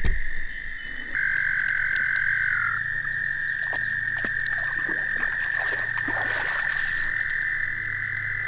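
Frogs calling from the pond: one continuous high-pitched trill that runs without a break and gets louder about a second in. Faint rustles and twig snaps come from a dog moving through dry brush at the water's edge.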